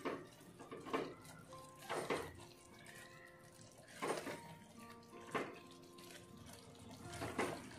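A spatula stirring a wet spinach and sprouted moong curry in a soapstone kalachetti pot, making about six squelching, sloshing strokes, roughly one every second or so.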